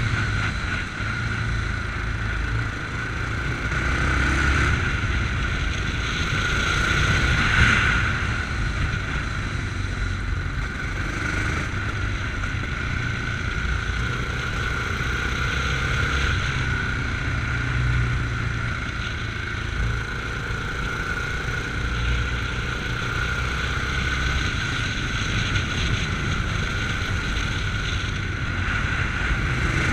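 Yamaha MT-03 motorcycle engine running under way, its note rising and easing every few seconds with the throttle, heard with a rider's wind rush.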